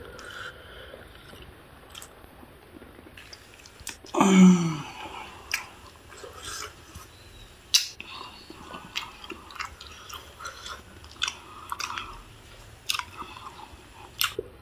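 A person chewing and biting boiled octopus tentacle, with many short wet mouth clicks and smacks. About four seconds in there is one short, loud vocal sound that falls in pitch.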